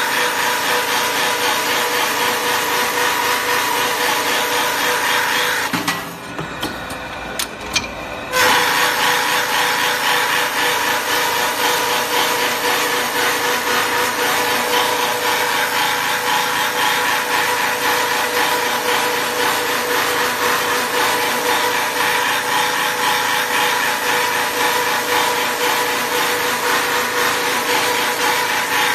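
Wooden handle shaping machine running, its rotating cutter head cutting a wooden pickaxe handle with a steady whine over rough cutting noise. About six seconds in it goes quieter for about two seconds, with a few clicks, then the cutting comes back abruptly.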